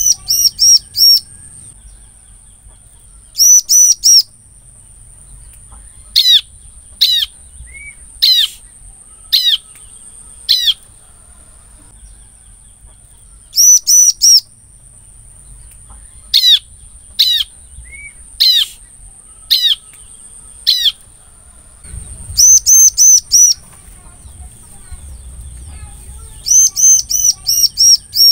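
Bar-winged prinia (ciblek) calling: bursts of four or five quick, high chirps, repeated every few seconds, alternating with a series of single down-slurred notes and short lower whistles. This is the call used to lure wild ciblek.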